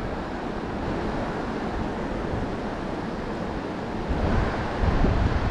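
Steady rush of river water flowing over a rocky riffle, with low buffeting on the microphone growing from about four seconds in.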